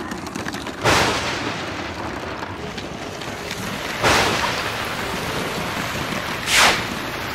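Storm sound effect: a steady rushing, rain-like noise with three sudden surges that each fade quickly, about a second in, about four seconds in and near the end.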